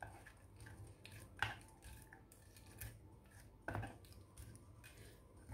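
Metal spoon stirring a wet sambal in a wooden mortar, faint, with a few sharp knocks of the spoon against the wood, the clearest about a second and a half in and again near four seconds.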